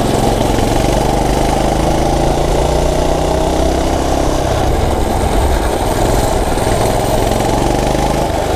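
Coleman gas mini bike's small single-cylinder four-stroke engine running under way at cruising speed, its note easing a little lower over the first few seconds and then holding steady, with air rush over the microphone.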